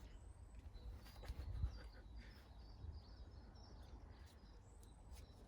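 Faint chirps and short whistled calls of garden birds, over a low steady rumble, with a few light clicks.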